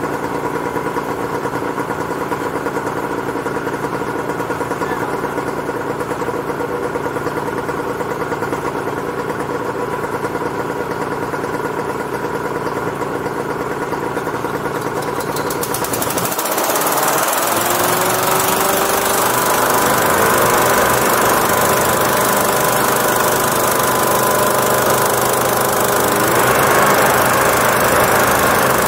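Homebuilt hovercraft's engine running steadily at idle. About halfway through it revs up and gets louder, with a rush of fan and propeller air and the engine pitch rising as the craft moves off over the snow.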